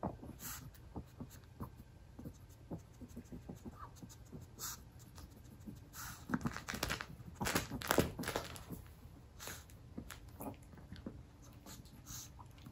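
Yorkshire terrier sniffing and snuffling with its nose down in the holes of a plush snuffle mat, hunting for treats, with panting between the sniffs. Irregular short strokes, with a busier, louder flurry about six to eight seconds in.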